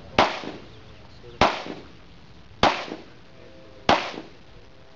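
Four pistol shots, evenly spaced about a second and a quarter apart, each a sharp crack with a short echoing tail.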